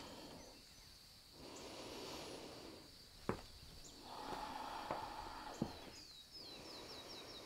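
Faint sounds of a person moving through slow side lunges on a yoga mat: two soft rustling swells, a couple of light knocks, and a quick run of high chirps near the end.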